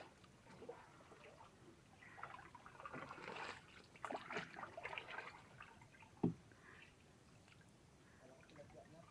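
Faint, irregular sloshing and splashing of shallow water, with a single sharp knock about six seconds in.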